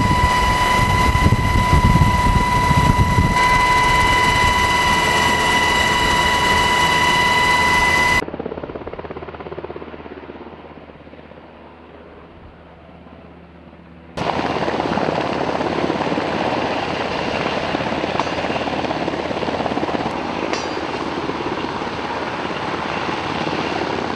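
Helicopter noise in edited segments. First a loud, steady rotor and engine sound with a high whine. About eight seconds in it cuts abruptly to a quieter, duller sound that fades away. About six seconds later it cuts back to loud helicopter noise.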